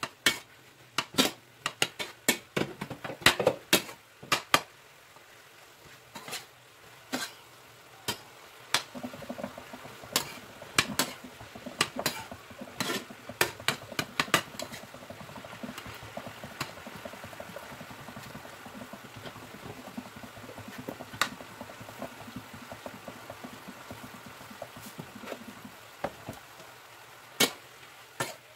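A utensil clicking and scraping against a copper-coloured nonstick frying pan as diced eggplant is stirred, over a steady frying sizzle. The clicks come thick and fast in the first half, then thin out while the sizzle carries on, and pick up again near the end.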